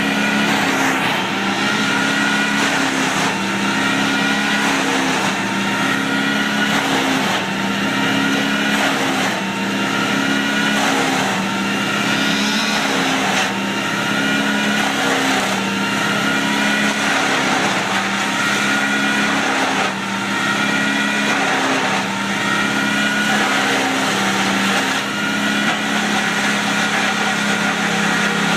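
Bandit hand-fed drum-style wood chipper running, its engine and drum making a steady drone that dips in a regular rhythm about once a second.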